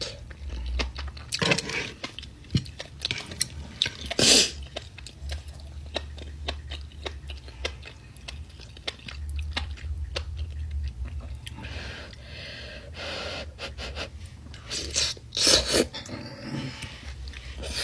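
A person eating ramen close to the microphone: chewing and wet mouth sounds, with many small clicks and a few louder smacks about four seconds in and again near the end.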